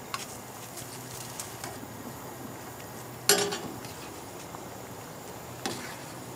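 Metal lid lifted off a stainless steel bush pot with a sharp clank and a short ring about three seconds in, then a smaller clink of a spoon in the pot near the end. Under it runs the steady hiss of a Coleman gas stove and the stew boiling.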